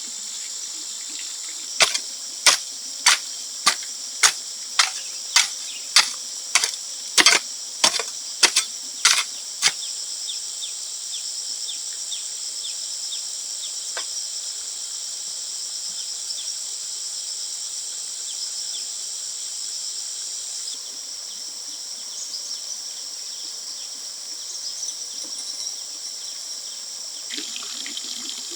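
Steady high-pitched insect chorus of crickets or cicadas. It is cut across in the first third by a run of about a dozen sharp knocks, roughly one and a half a second, the loudest sounds here.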